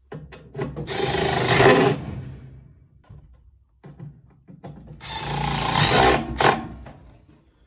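A small power-tool motor running in two bursts of about two seconds each, each one fading out gradually rather than stopping sharply.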